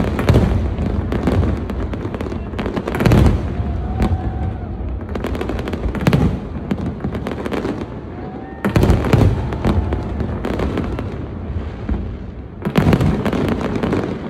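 Aerial firework shells bursting in a continuous barrage of bangs and crackle. The heaviest volleys come at the start, about three seconds in, about nine seconds in, and near the end.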